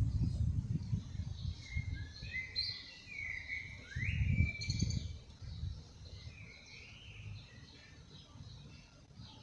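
Songbirds chirping and singing, with short whistled notes and a rising sweep about four seconds in, over a low rumble that comes and goes and is loudest near the start and about four seconds in.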